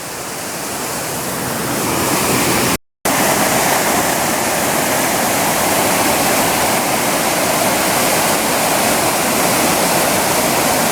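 Waterfall rushing steadily, growing louder over the first two seconds. The sound cuts out completely for a moment about three seconds in, then resumes at the same level.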